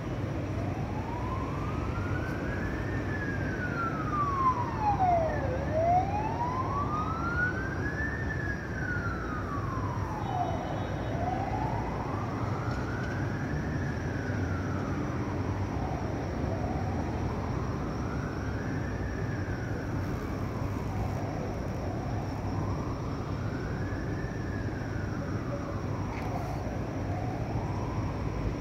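Emergency vehicle siren in a slow wail, rising and falling in pitch about every five seconds and growing fainter over the last few cycles, over a steady low city hum.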